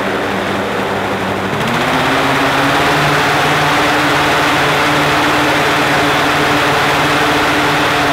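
Small gasoline engine of a hot air balloon inflator fan running, with the rush of air from the fan. About a second and a half in it speeds up and then holds a steady, higher pitch, blowing cold air into the balloon envelope.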